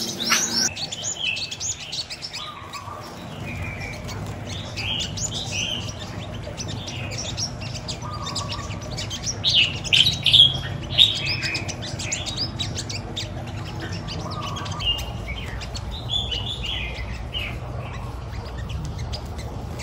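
Caged sunbirds chirping and twittering in short high calls, busiest about halfway through, over a low steady rumble.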